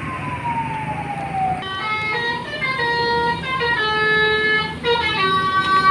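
Bus telolet horn: a multi-tone musical air horn playing a tune of held notes that step up and down in pitch, starting about one and a half seconds in after a single tone sliding down. A short break comes near the end, and quicker notes follow it.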